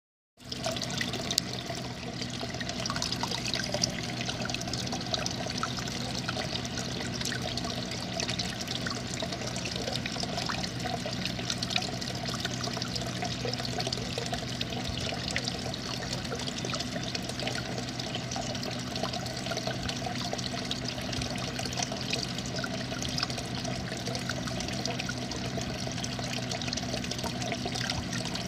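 Small waterfall trickling and splashing over rocks into a garden pond, steady throughout, with a steady low hum underneath.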